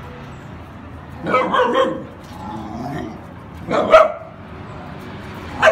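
A dog barking in short bursts: a quick cluster of barks a little past a second in, another bark about four seconds in, and one more at the very end.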